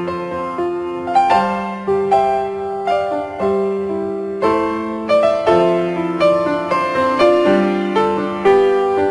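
Background piano music: a slow, gentle tune over held chords, with new notes struck about twice a second.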